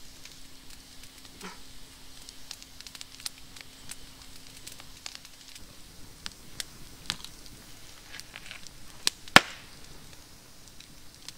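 Wood campfire crackling, with irregular sharp pops from the burning logs and one loud pop about nine seconds in.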